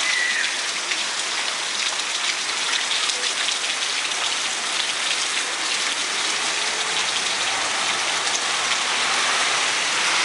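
Steady rain falling: a dense, even hiss with individual drops ticking close by.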